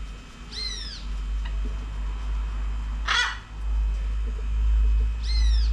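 Parrot calls: a short arched call about half a second in, a loud harsh squawk about three seconds in, and another arched call near the end, over a low rumble.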